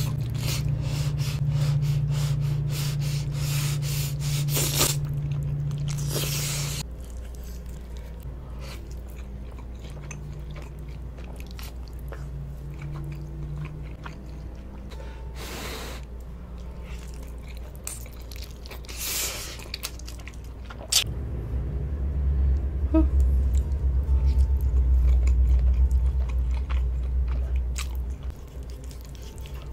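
Close-miked eating of spaghetti in tomato sauce: noodles slurped in, with wet chewing and short sharp clicks. A steady low hum runs underneath, louder for the first seven seconds and again from about 21 to 28 seconds.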